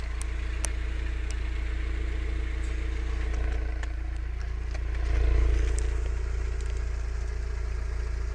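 Mazda MX-5's four-cylinder engine idling steadily, swelling briefly about five seconds in.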